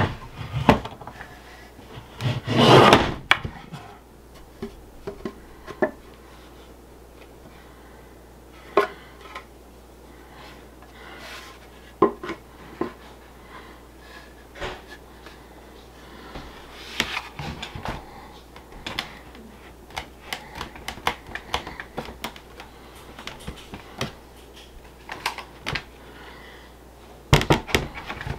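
Box-jointed cedar boards knocking, clattering and rubbing on a table as they are handled and slotted together, with a louder scrape about three seconds in and a run of small wooden clicks and taps later on.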